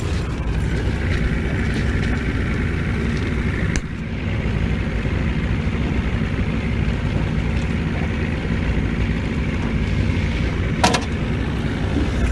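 Boat motor running steadily at trolling speed, a constant low rumble. A sharp knock sounds about four seconds in and again near the end.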